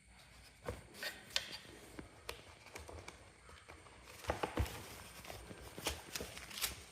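Irregular clicks and knocks from a trolley suitcase being handled, with a quick cluster of them about four seconds in.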